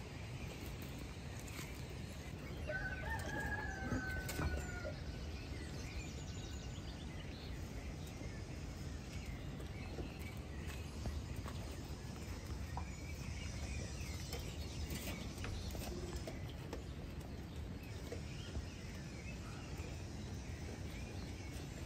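A rooster crows once, a single drawn-out call about three seconds in, over a steady low rumble of outdoor background noise.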